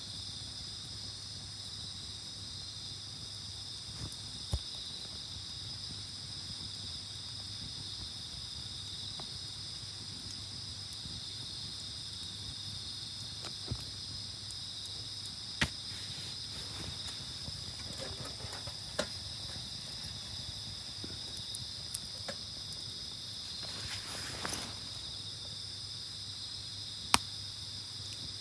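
Steady high-pitched chorus of crickets and other insects, with a few single sharp pops from the burning campfire and a brief rustle about three-quarters of the way through.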